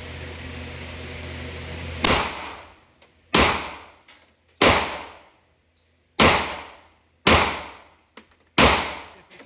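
Six pistol shots from a 10mm Glock, fired one at a time about a second to a second and a half apart. Each is a sharp crack with an echo that dies away quickly.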